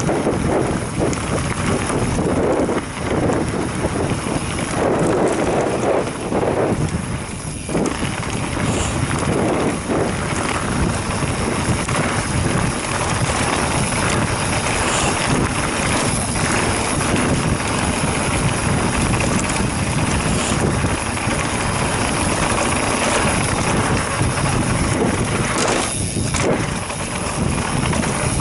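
Wind rushing over the camera microphone as a mountain bike rolls down a dirt and gravel singletrack, with the tyres crunching over stones and ruts.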